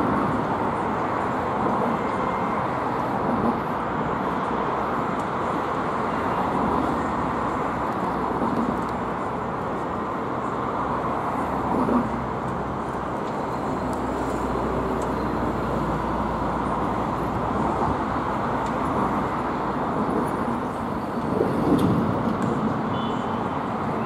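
Steady road traffic noise from cars and buses passing, with a brief louder swell about three-quarters of the way through.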